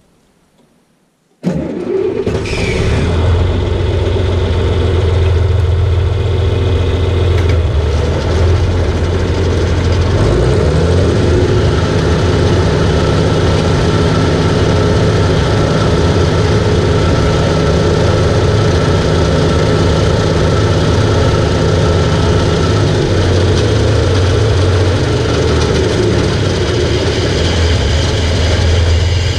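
Tractor engine running steadily with the PTO driving a pull-type mower-conditioner, its reel turning: a test run of the mower after its broken PTO shaft was repaired. The sound starts suddenly about a second and a half in.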